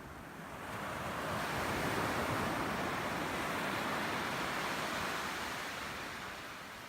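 An ocean wave breaking and washing up the beach: a rush of surf that swells about a second in and slowly fades away near the end.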